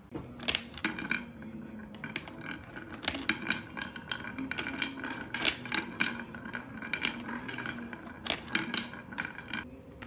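A glass marble rolling around a plastic marble-run funnel and down its tracks: a steady rolling rumble with a ringing hum, broken by many sharp clicks and knocks as it strikes the walls and joins.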